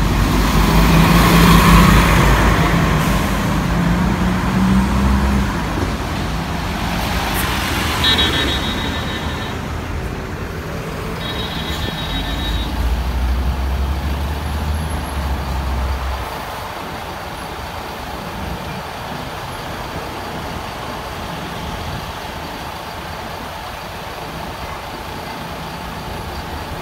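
Buses passing in traffic: a bus engine runs loudly in the first few seconds, two spells of high electronic beeping come about 8 and 11 seconds in, and a deep engine rumble cuts off at about 16 seconds, leaving steady traffic noise.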